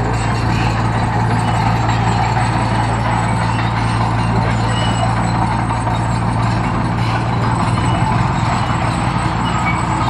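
Komatsu D20P small crawler bulldozer's diesel engine running steadily under load as the machine pushes crushed gravel, a constant low hum with no let-up.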